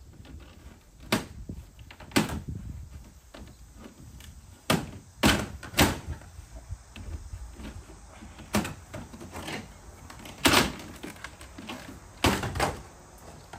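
Irregular knocks and bangs of demolition work, siding and boards being pried and knocked loose. About ten sharp blows, a couple of them in quick pairs.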